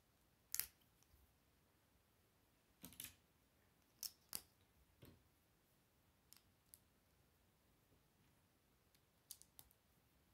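Plastic Lego bricks being handled and snapped together by hand: irregular sharp clicks, about ten in all, the loudest about half a second in.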